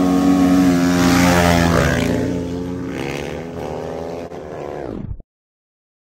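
Dirt bike engines at full throttle racing past, the note held high and then dropping in pitch and fading as the bikes pull away. The sound cuts off abruptly about five seconds in.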